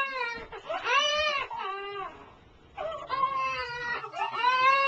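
Baby crying: a string of drawn-out cries, broken by a short pause a little after two seconds in.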